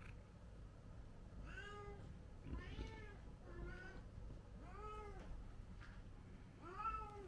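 Kitten meowing repeatedly: about five short meows, each rising then falling in pitch, spaced about a second apart.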